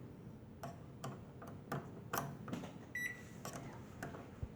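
LG microwave oven giving a single short, high beep about three seconds in, with a few light clicks and knocks around it.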